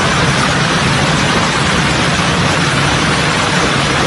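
Hail and gusting storm wind: a steady, loud, dense rush of noise with no separate strikes, and the wind buffeting the microphone.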